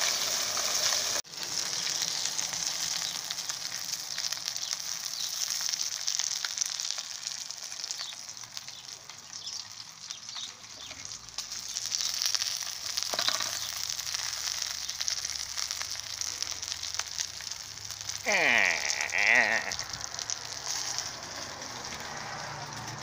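Rainbow trout pieces frying in oil in a nonstick skillet: a steady sizzle. A short two-part call cuts in near the end, louder than the frying.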